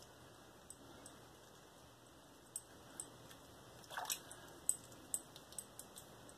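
Slant safety razor scraping over lathered skin in short touch-up strokes: faint, crisp scratches, sparse at first and more frequent in the second half, with one longer scrape a little past midway.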